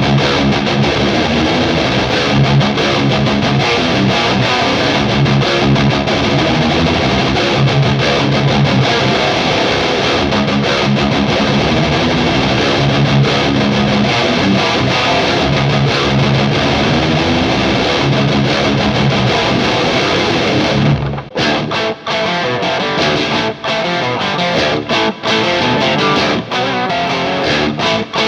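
Electric guitar played through the SideFx Triamp prototype preamp pedal with a distorted, gain-heavy tone, in dense sustained riffing. About three quarters of the way in the playing turns to choppy, stop-start riffs with short gaps.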